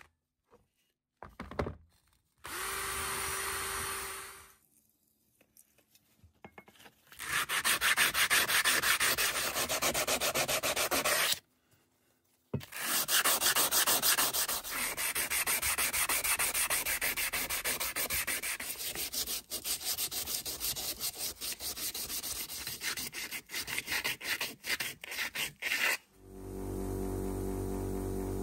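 Abrasive sanding on the metal of an old pipe cutter: fast, continuous rubbing strokes with a brief pause midway. A steady hum comes in near the end.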